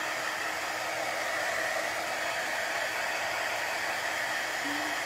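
Small handheld electric dryer blowing steadily, drying wet chalk paste on a chalkboard.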